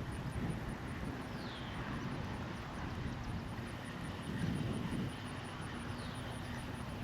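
Low rumbling wind noise on the microphone, with two brief falling chirps, one about a second and a half in and one near the end.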